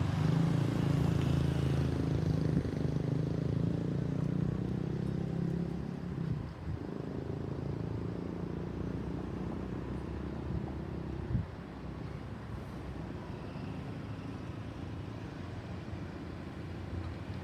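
A motor vehicle's engine running with a steady low hum, dropping away about eleven seconds in to a quieter rumble, with a single knock at that point.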